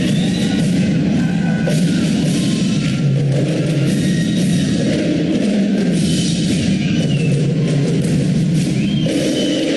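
Recorded symphonic wind band playing full and steady, with percussion, heard as video playback.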